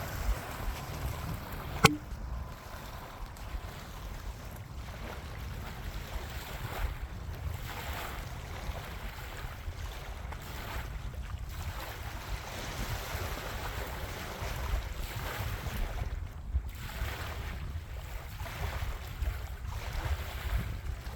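Steady wind rumble on the microphone with the faint drone of a low-flying floatplane's engine, and one sharp click about two seconds in.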